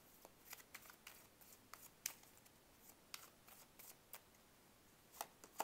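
A tarot deck being shuffled by hand: faint, irregular clicks and slides of cards against one another, with a couple of sharper clicks near the end.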